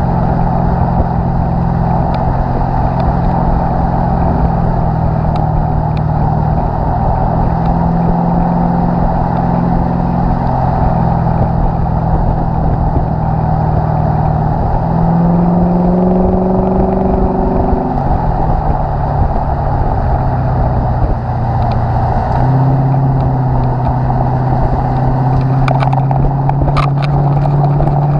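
Lexus IS F's 5.0-litre V8 running through an X-Force cat-back exhaust, heard at the tailpipes while the car drives along. A steady cruising drone rises in pitch for a few seconds about halfway through, falls back, then settles into a steady drone again, over road and wind noise.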